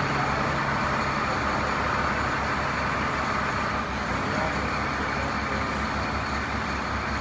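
Hino coach's diesel engine running as the bus pulls slowly away, a steady low rumble that eases slightly about four seconds in.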